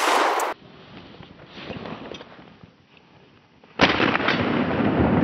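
Two shotgun shots, sharp and loud: one right at the start, ringing out within about half a second, and another about four seconds in, followed by a loud, rumbling, noisy stretch.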